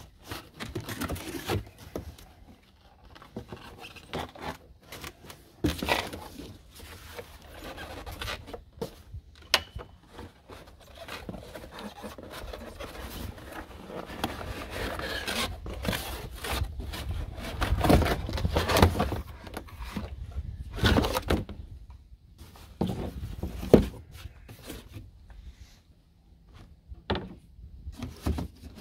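Irregular scraping, rubbing and knocking as a new chainsaw and its packaging are handled, with sharper knocks now and then.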